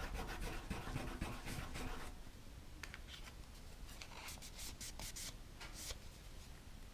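Cotton pad with nail cleanser rubbed back and forth over a metal nail-stamping plate for about two seconds, wiping it clean. After that, only a few faint light clicks.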